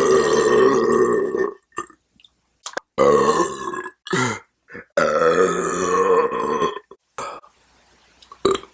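A man burping: a run of long, drawn-out burps, one lasting until about a second and a half in, another about three seconds in, and the longest, nearly two seconds, about five seconds in, with short little burps in between.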